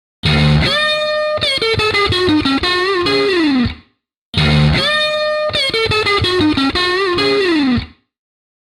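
Electric guitar playing a short lead lick, heard twice: a held note, then a falling run of notes with bends that ends in a slide down the neck.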